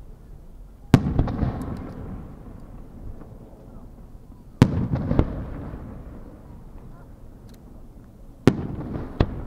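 Three aerial firework shells bursting, one about every three and a half to four seconds: each a sharp bang followed by a rumble that dies away over a second or two, with a few smaller pops.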